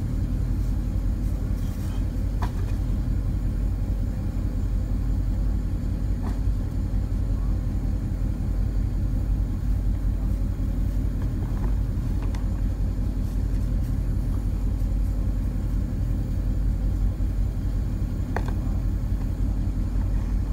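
Tow truck engine idling with a steady low rumble, with a few faint clicks over it.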